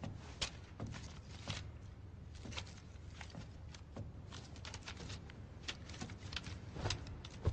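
Scattered light clicks, knocks and rustles, irregular and quiet, as a person moves and handles things on a wooden palace floor.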